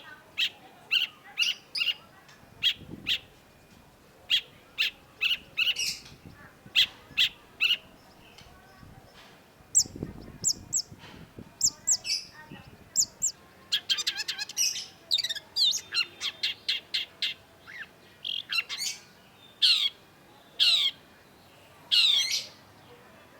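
Long-tailed shrike (cendet) singing: strings of short, sharp, high chirps, breaking into a fast run of notes in the middle and ending in a few loud notes that sweep downward.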